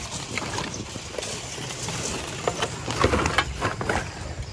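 Irregular light knocks and clicks over a rustling noise, thickest about three seconds in.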